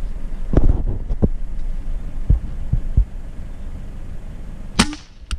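Low, irregular thumps and rumble on the microphone. Near the end comes a sharp crack of an air rifle firing a pellet, followed about half a second later by a second short click.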